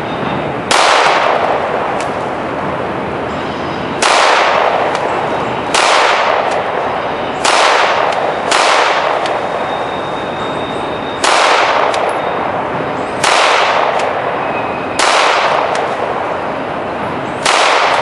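9mm Glock 17 pistol fed from a 33-round magazine, firing nine single shots at uneven intervals of one to three seconds, each shot trailed by a long echo.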